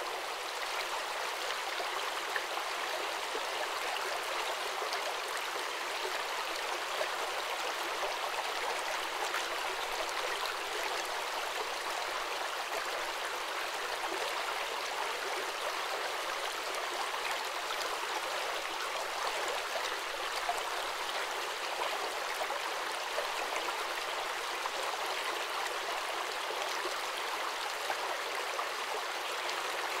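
Shallow forest stream flowing over stones, a steady hiss and splash of water with no low rumble.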